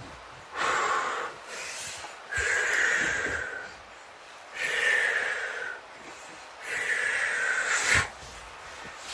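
A person breathing deeply and audibly: four long, airy breaths of a little over a second each, with short pauses between them.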